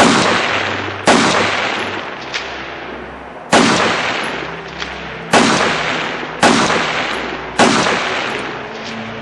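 Six single shots from a semi-automatic AR-style rifle, unevenly spaced: two about a second apart, then a pause, then four more. Each loud crack is followed by about a second of echo dying away. The first shot is the loudest.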